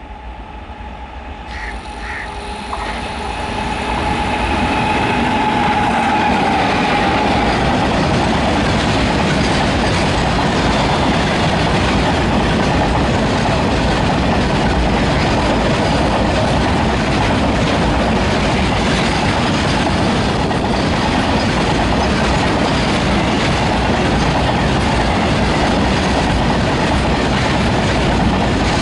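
A freight train hauled by an electric locomotive approaches at speed, growing louder over the first few seconds, then a long string of open-top freight wagons rolls past close by with a continuous loud rolling noise of steel wheels on the rails.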